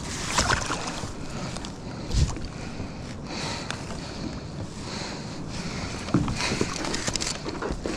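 Wind and water sounds around a small kayak at sea, with a few dull knocks against the hull.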